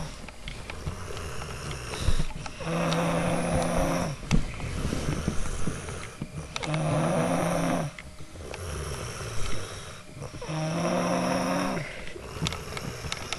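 A person snoring really loud while congested with a cold: three loud snores about four seconds apart, each lasting just over a second, with quieter breathing between them.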